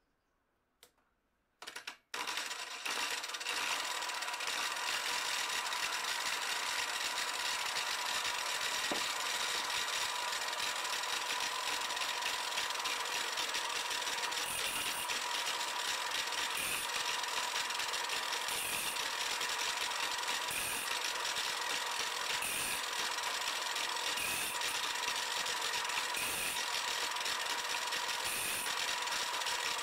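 Angle grinder switched on through a speed controller a couple of seconds in, after a couple of clicks, then running steadily at reduced speed with a constant whine. From the middle on, a short scraping grind about every two seconds as each band-saw blade tooth is pushed against the spinning disc.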